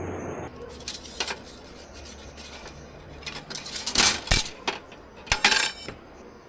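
Small metal objects clinking and rattling, with louder clusters of ringing clinks about four seconds in and again about five and a half seconds in.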